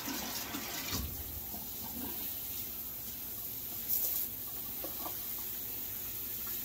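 Water from a kitchen sink sprayer spraying onto a hanging plant in the sink, a steady hiss with a brief louder burst about four seconds in.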